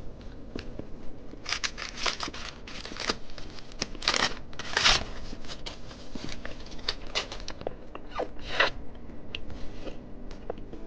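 Plastic candy packages being handled and opened: irregular crinkling and tearing rasps, the loudest clustered about two to five seconds in and again near the end.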